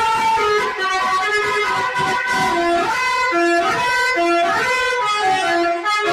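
Basuri telolet musical horn playing a melody: a run of loud held notes with pitch slides between some of them.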